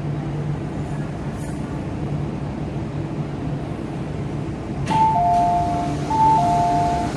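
Steady low hum of a metro train standing at the platform with its doors open. Near five seconds in, a two-tone electronic chime, a high note then a lower one, sounds twice.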